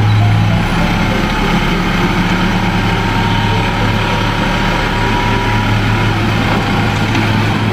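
Light dump truck's diesel engine running steadily with a deep even hum while its hydraulic hoist tips the loaded bed to dump soil.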